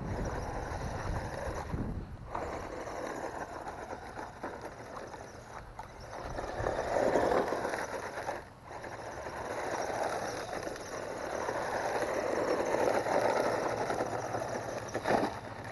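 GPTOYS S926 1:12 scale 4WD RC truck driving over dirt and rock, its electric motor and tyres making a rough running noise that swells twice as it is driven harder.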